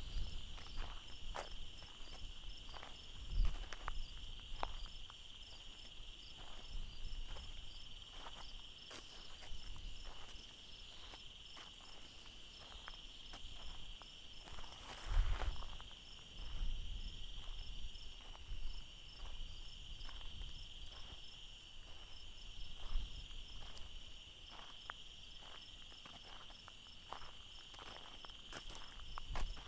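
A steady evening chorus of crickets and other insects: one continuous high trill with a faster pulsing chirp above it. Irregular footsteps on the railroad track's gravel ballast tick through it, with a couple of heavier thumps about three seconds in and near the middle.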